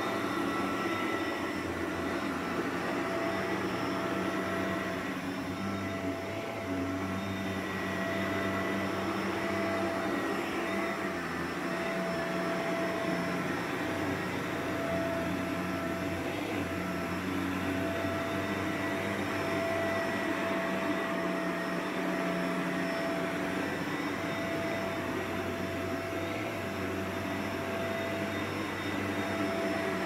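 Shark Navigator upright vacuum cleaner running steadily as it is pushed back and forth over thick carpet: a constant rushing of air with a steady motor whine.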